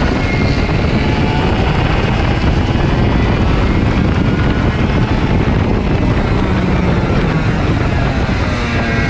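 KA100 two-stroke kart engine running hard on track, its pitch rising and falling with the throttle, under heavy wind rush on the onboard microphone.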